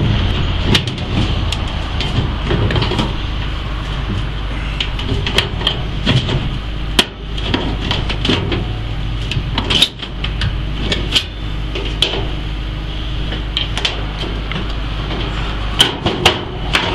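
Scattered metal knocks, clicks and clanks of hand-tool work on a rooftop air-conditioning unit, over a steady machine hum.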